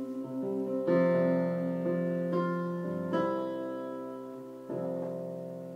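Instrumental interlude of slow, sustained keyboard chords, a new chord struck about every one to two seconds and left to ring and fade.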